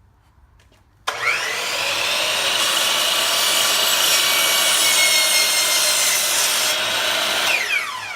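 Electric power saw starting up about a second in, its pitch rising as the blade spins up, then cutting through a wooden board, and winding down with a falling pitch near the end.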